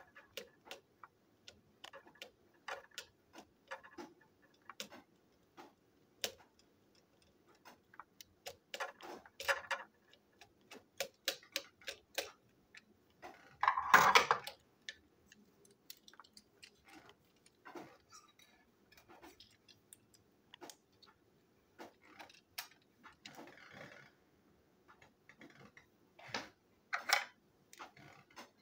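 Irregular small clicks and ticks of a precision screwdriver on a tiny screw and of the plastic parts of a toy train chassis being handled, with a louder brief clatter about halfway through.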